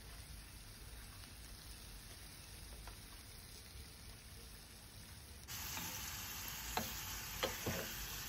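Beef cubes frying in olive oil in a stainless steel pot, stirred with a wooden spoon. The sizzle is faint at first, then much louder about five seconds in, with a few short knocks of the spoon against the pot.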